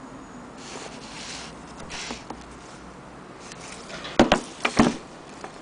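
An old wooden sewing-machine base board being handled on a wooden table: a few soft rubbing and sliding sounds, then a quick cluster of sharp wooden knocks about four seconds in, the loudest sounds.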